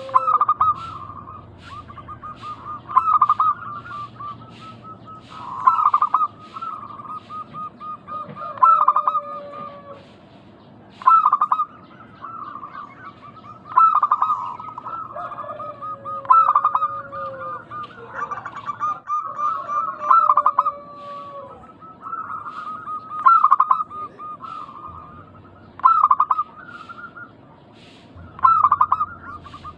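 Zebra doves (perkutut) cooing, a loud call repeated about every two to three seconds with quieter rapid notes between calls. A lower, drawn-out note slides downward several times.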